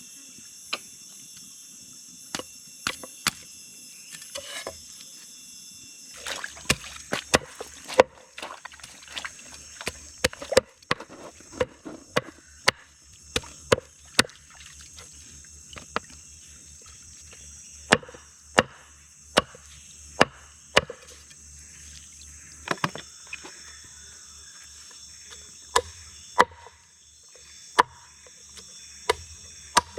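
Irregular sharp knocks and chops, thicker after about six seconds in, over a steady high drone of jungle insects.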